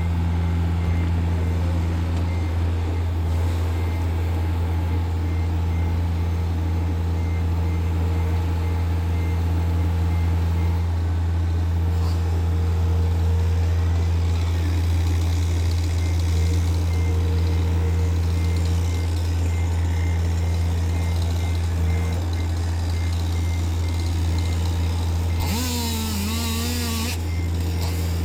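John Deere 60G excavator's 53 hp Yanmar diesel running steadily under work, with a faint rapid beeping in the background. Near the end a brief wavering whine with a hiss cuts in.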